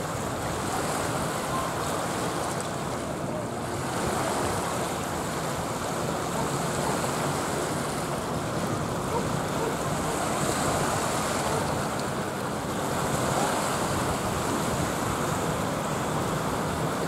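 A steady rushing noise of wind and water, with no distinct events.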